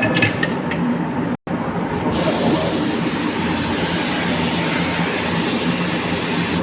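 Steady machine hum, joined about two seconds in by a loud hiss that starts suddenly and holds.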